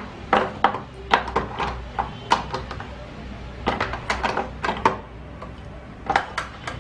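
Hard plastic clicking and knocking, a dozen or so irregular taps, as a removable insert is fitted and snapped back into an automatic washing machine's detergent drawer.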